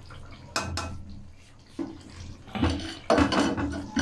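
Spoon stirring a pan of thick curry, knocking and scraping against the pan several times. It is set down on a glass dish at the very end.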